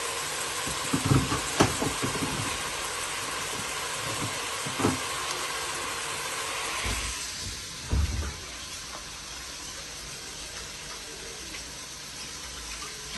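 Onions frying in oil in a pan, a steady sizzling hiss, with a few light knocks in the first seconds, around the middle and about eight seconds in. The sizzle gets quieter about seven seconds in.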